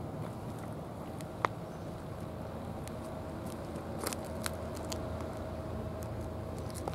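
Steady low outdoor rumble with a faint steady hum, broken by a few brief faint clicks, one about a second and a half in and a small cluster past the middle.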